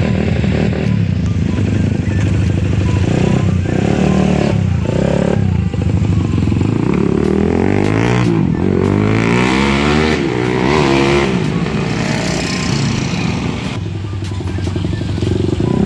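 Stroke-up Suzuki Satria F150 single-cylinder engine running, revved up and back down a few times in the middle, then settling back to a steady idle.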